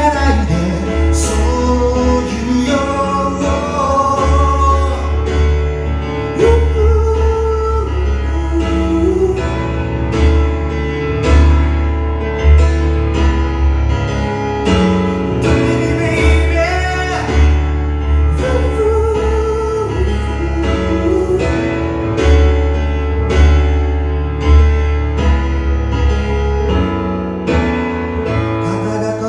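A man singing to his own accompaniment on a Roland RD-700-series digital stage piano, with sustained chords over deep bass notes.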